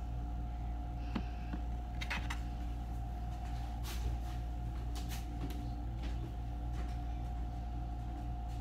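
A steady low electrical hum with a faint steady whine, and a few faint, brief clicks and knocks scattered through it.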